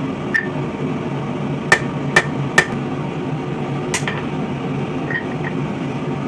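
Hand hammer striking hot spring steel on an anvil, forging a knife blade's bevel. About seven irregular blows, each ringing briefly, with three in quick succession near the middle.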